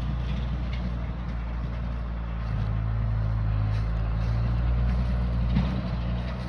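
Skid steer engine running steadily, getting a little louder and heavier about two and a half seconds in.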